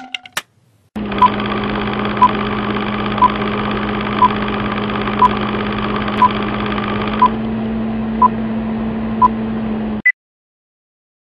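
Old-film countdown leader sound effect: a steady whirring hum with a short beep once a second, nine beeps in all, then one higher beep as it cuts off suddenly.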